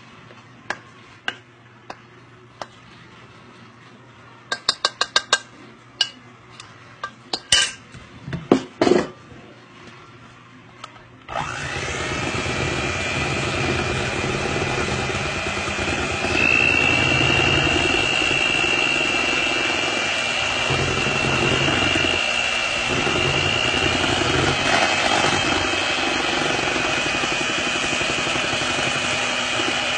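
A few scattered clicks and knocks, then about eleven seconds in an electric stand mixer starts and runs steadily, beating cake batter as the flour is mixed in. Its high motor whine steps up in level about five seconds after it starts.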